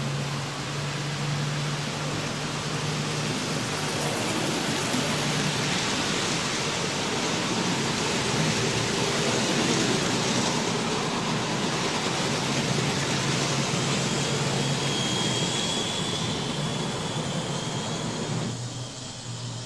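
Model train running on the layout track: a steady rolling rattle of wheels on rails with a low motor hum, a little louder toward the middle and falling off shortly before the end.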